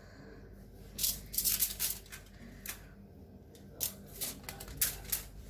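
Aluminium foil crinkling in irregular bursts as it is pressed down over the rims of small bowls.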